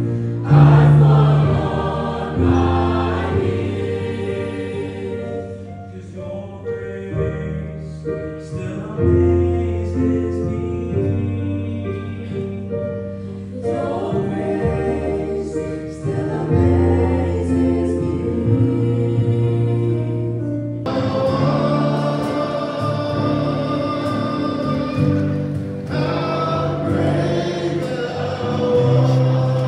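A school choir singing a gospel song, its held chords changing every couple of seconds over deep sustained low notes.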